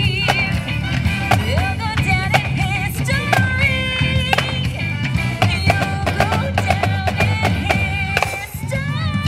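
Music with a wavering melodic line, crossed by sharp snare drum strikes from a drumline playing along, with a brief dip in the music near the end.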